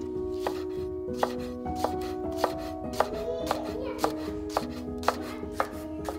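Chef's knife slicing spring onions on a wooden cutting board: crisp, even cuts about two a second, each stroke ending in a knock of the blade on the wood.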